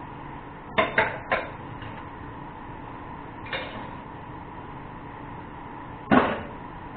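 Cookware clattering: a few sharp knocks of pots and utensils, three quick ones about a second in, a lighter one midway and the loudest near the end, over a steady background noise.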